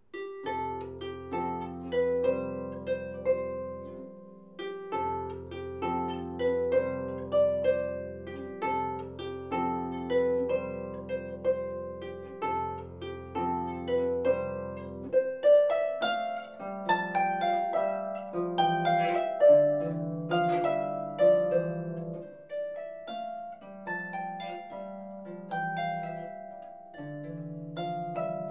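Solo harp playing a folk tune: a plucked melody over low bass notes in the left hand. The playing starts right at the beginning after near silence, and the bass notes become shorter and higher about halfway through.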